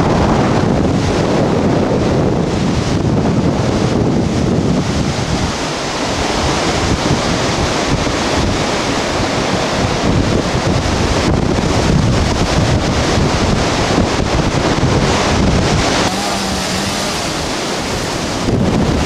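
Strong storm wind gusting and buffeting the microphone: a loud, continuous rush that swells and eases, dropping off a little near the end.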